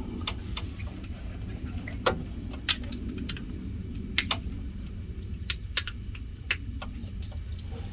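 Scattered light metallic clicks and clinks as a screw is loosened on a light fixture's metal mounting bracket, over a steady low background rumble.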